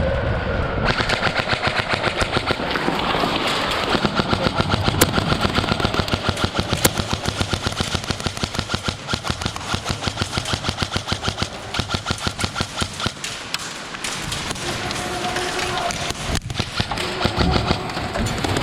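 Airsoft guns firing long full-auto bursts: a rapid, even chatter of shots that starts about a second in and runs for over ten seconds before thinning out.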